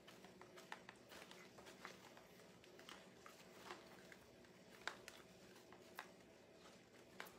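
Near silence with faint rustling and scattered small clicks of ribbon and a pipe cleaner being handled and twisted at the centre of a bow; the clearest clicks come about five, six and seven seconds in.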